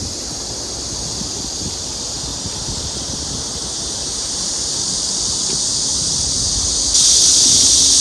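Cicada chorus: a steady high-pitched buzzing that grows louder and jumps up sharply about seven seconds in, over a low rumble of wind on the microphone.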